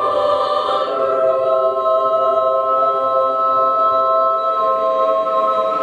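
Children's choir singing a cappella, holding a long chord in several voices that settles about a second in and then stays steady.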